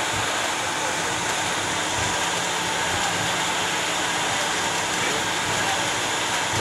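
Steady hiss and low hum heard inside the cockpit of a Bombardier Global 6000 as it taxis: its turbofan engines at idle together with the rush of cockpit air.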